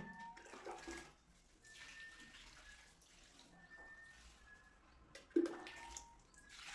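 Wet, washing-like scraping during floor tiling, in several short passes, with one sharp knock about five and a half seconds in.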